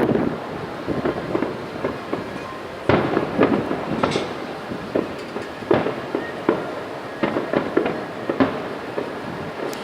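Aerial fireworks bursting: a dense run of bangs and crackles, with a louder bang about three seconds in and more strong ones near six and eight seconds.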